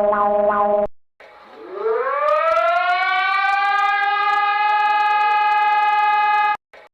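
Emergency alert sounds. A steady buzzing alarm tone with a faint tick about three times a second cuts off about a second in. After a short gap, a civil-defense-style siren winds up in pitch over about two seconds, holds one steady tone, and stops abruptly near the end.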